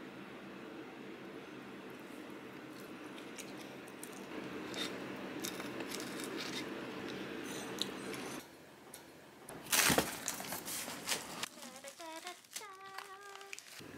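Fork and knife on a plate while pizza is eaten, then, after a cut, a sudden loud clatter and crinkling as metal rack parts and packaging are handled on a wooden floor. Near the end a cat meows in a few short wavering calls.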